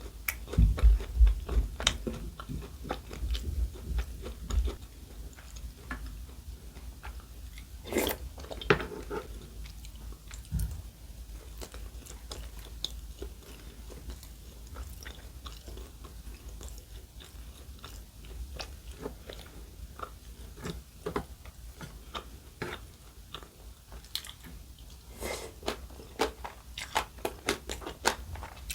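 A person chewing and crunching food close to the microphone, with wet, clicky mouth sounds throughout. There are low thumps in the first few seconds, a sharper crunch about eight seconds in, and a quicker run of crunching near the end.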